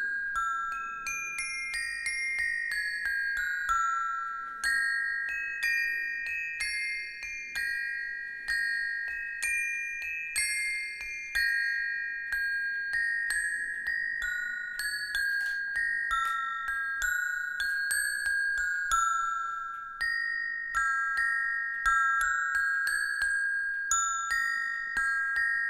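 Set of tuned metal bars resting on foam blocks, struck with two thin metal beaters, playing a simple Christmas pastorale: clear ringing notes, about two a second, in a short tune that repeats over and over.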